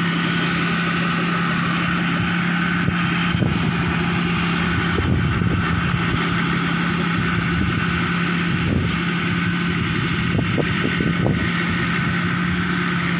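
Kaset Pattana "Ngern Mee" small rice combine harvester running steadily while harvesting lodged rice, a constant engine drone with a steady threshing hiss above it. A few soft low thumps come through in the middle.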